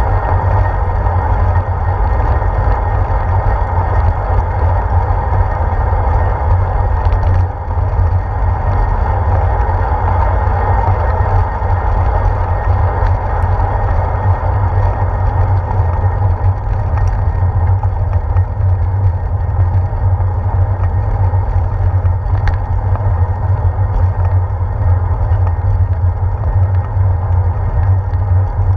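Steady wind rumble and road noise from a bicycle riding on pavement, picked up by a handlebar-mounted action camera, with a couple of faint clicks.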